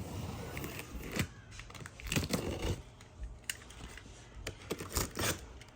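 Cardboard box and packaging being handled for unboxing: irregular sharp clicks and knocks with short scraping and rustling, the clicks coming more often after the middle.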